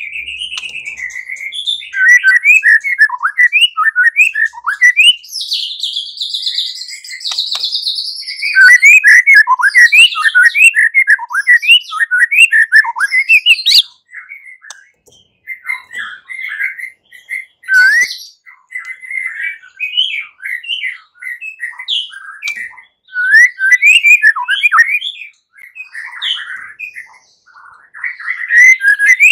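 White-rumped shama singing a fast, combative fighting-style song: rapid runs of varied whistles and chattering notes, with a harsher, noisier stretch about six to eight seconds in.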